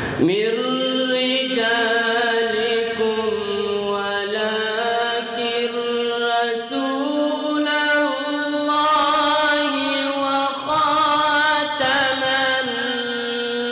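Male Quran recitation (tilawat) in a melodic, drawn-out style: one voice holding long notes with wavering ornaments. The voice slides up into the first note and steps up in pitch about halfway through.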